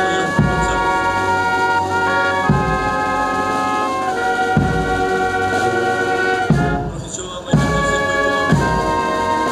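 Brass band music in a slow march: trumpets and trombones holding long notes that change every second or two, over a drum stroke roughly every two seconds. It breaks off briefly about seven seconds in, then carries on.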